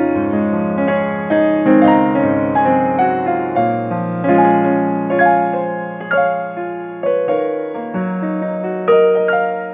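Background piano music: notes and chords struck one after another at an unhurried pace, each left to ring and fade.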